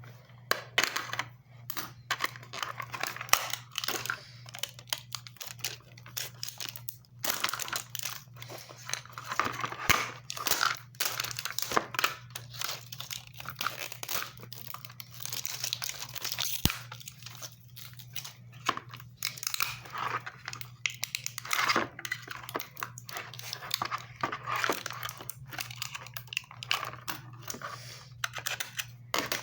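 Stiff plastic packaging crinkling and crackling in irregular bursts as it is handled and worked at to get it open, over a steady low hum.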